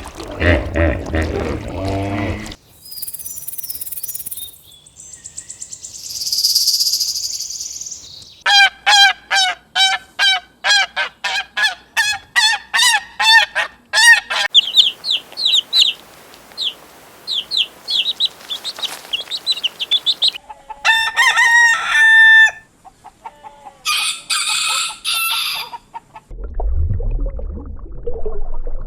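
A run of farm-animal calls, one clip after another. Chickens cluck in a quick series of about a dozen calls, small birds chirp, and a rooster crows briefly.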